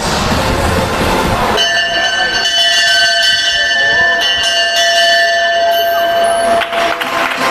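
A dolphin ringing a brass bell hung over the pool. The bell rings continuously for about five seconds, starting about one and a half seconds in and stopping shortly before the end. Crowd and music noise come first.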